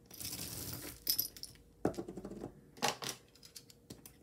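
Metal costume jewelry clinking on a tabletop as a pile is sorted and a bangle bracelet is set down. A short rustle comes first, then a few sharp metallic clinks, the loudest about two and three seconds in.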